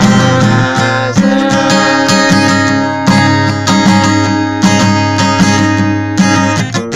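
Music: an acoustic guitar strummed steadily, with chords changing throughout.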